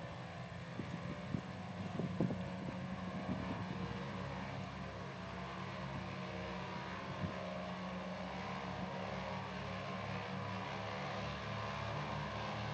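Douglas DC-3's twin radial piston engines running in a steady, even drone on takeoff, slowly growing louder. A few light knocks in the first two seconds.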